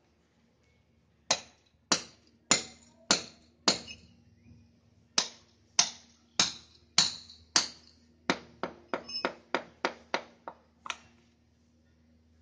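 Hammer blows on the concrete paver road, each a sharp ringing clack: two runs of five steady strikes with a short pause between, then a quicker run of about nine.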